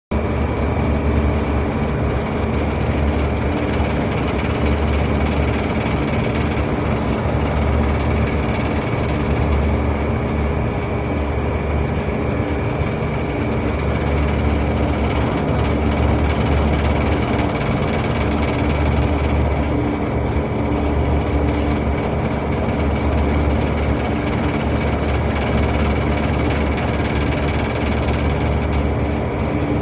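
Large industrial air conditioner running steadily, its fan rattling. A low hum swells and fades every couple of seconds under a constant whir.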